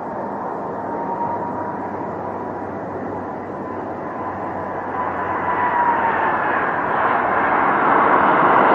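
Air Transat Airbus A330 jet engines during landing: a steady jet roar with a thin high whine that dips slightly in pitch about six seconds in. The roar grows louder toward the end as the airliner touches down and rolls out on the runway.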